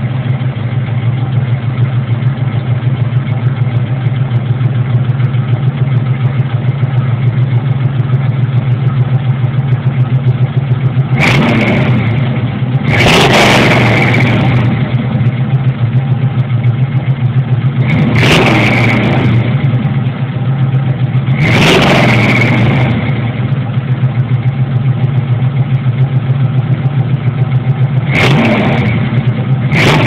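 1980 Camaro Z28's 350 small-block V8 exhaust, heard from behind the car, idling with a steady pulsing drone and revved briefly five times.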